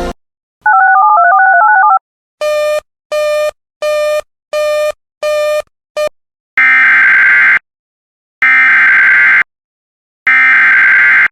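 Emergency Alert System broadcast tones: a brief electronic warble stepping between two pitches, then six short, evenly spaced beeps, then three one-second bursts of buzzy digital SAME header data. The header bursts announce the start of the next alert.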